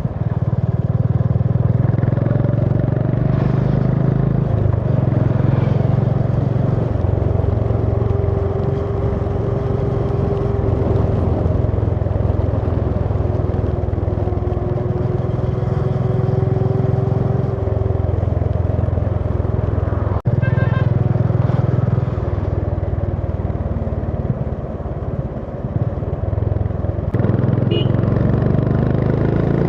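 Honda CB350 H'ness's single-cylinder engine running as the motorcycle rides along, its note shifting in steps every few seconds as throttle and gear change, with a sharp click about twenty seconds in.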